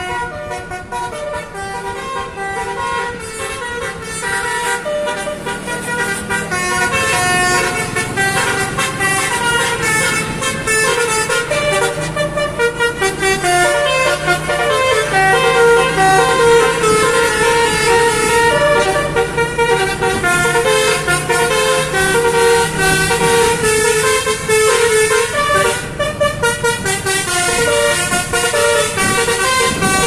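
Basuri telolet bus horn, a multi-tone horn, playing a long dangdut-koplo melody of quick stepped notes without a break, growing louder over the first several seconds.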